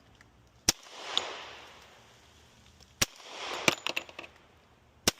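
Three single gunshots about two seconds apart, each followed by a rolling echo that swells and dies away. A shorter sharp click or ping follows about half a second after each of the first two shots.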